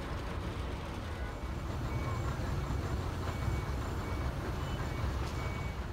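Steady low rumble of a heavy vehicle's engine in street noise, with a faint short beep about once a second.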